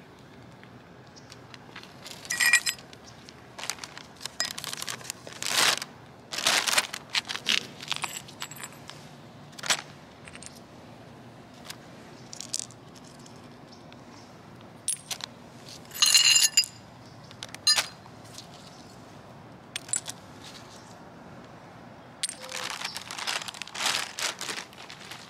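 Shards of a broken glass bottle clinking and scraping against each other and the concrete as they are picked up, with two sharp ringing clinks, one about two seconds in and one about sixteen seconds in. Near the end a plastic trash bag rustles.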